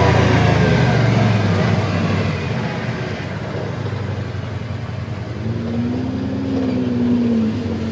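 ATV engines running. The first engine winds down in pitch over the first second or two and then runs steadily, and an engine rises and falls briefly in pitch a little past the middle.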